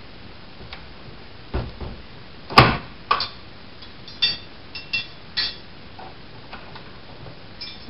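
Key and tool working the trick lock of an antique Italian handcrafted safe: a series of metal clicks and clunks, the loudest a sharp clack about two and a half seconds in, followed by lighter clicks with a brief metallic ring and a few faint ticks.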